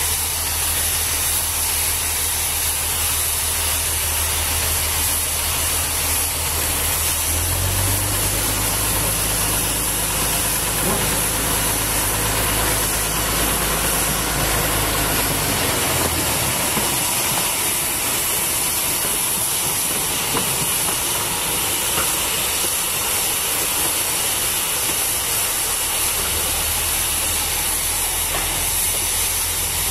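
Steady hiss of steam from a steam locomotive, with a small locomotive engine running low underneath; the engine note grows stronger about seven seconds in and fades away around sixteen seconds, as the tram cars it hauls roll by.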